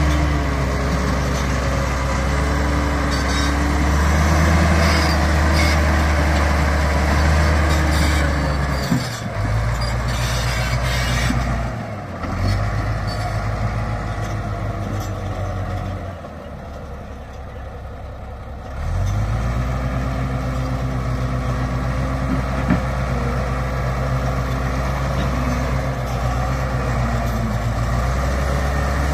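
BEML BD65 crawler bulldozer's diesel engine working under load as the dozer pushes soil with its blade. The engine note eases off for a few seconds past the middle, then comes back up to full load.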